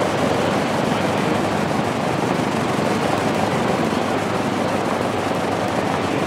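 Lockheed P-38F Lightning's twin Allison V-1710 liquid-cooled V-12 engines running steadily on the ground, both propellers turning, with no revving.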